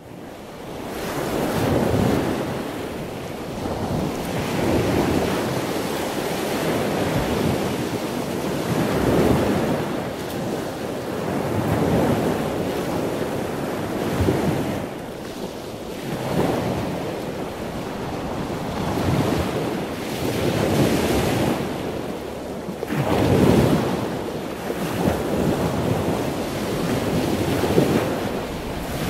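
Sea waves washing in, a rushing surf sound that swells and fades every two to four seconds.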